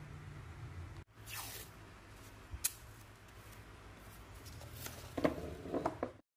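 Paper and adhesive tape being handled: a short falling screech about a second in, a sharp click, then a cluster of paper rustles and light knocks near the end as the taped sheet is put in place. The sound cuts off suddenly just before the end.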